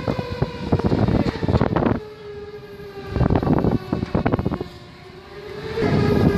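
A siren sounding one continuous wailing tone, its pitch sinking slowly and then rising again near the end. Dense crackling and knocking noise covers it except for two brief lulls.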